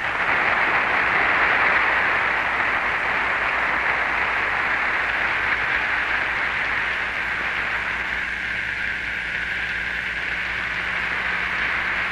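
Lecture-hall audience applauding, a dense, steady clapping that starts the moment the talk ends and eases a little partway through.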